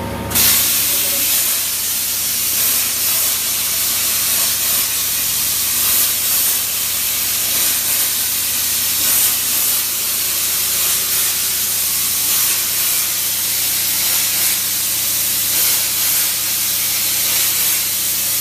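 A 200 A CNC plasma cutter's torch cutting: a loud, steady hiss that starts abruptly about half a second in.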